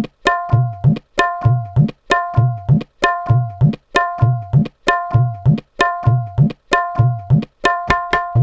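Tabla playing a steady repeating rhythmic cycle, about once a second: ringing, tuned strokes on the right-hand dayan and deep strokes on the bass bayan whose pitch bends upward.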